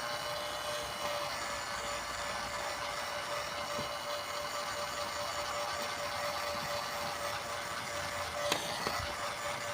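Steady blowing hiss with a faint constant hum from a heating tool warming a battery cable terminal, with a couple of light clicks near the end.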